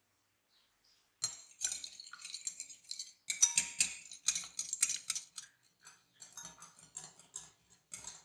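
Metal wire whisk beating a raw egg in a white bowl: fast clicking and scraping of the wires against the bowl, starting about a second in.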